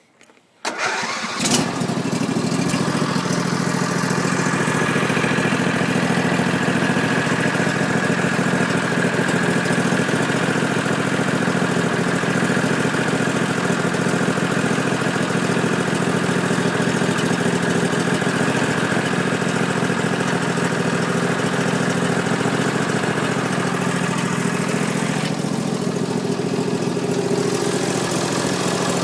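Garden tractor engine starting about a second in, catching at once, then running steadily at idle.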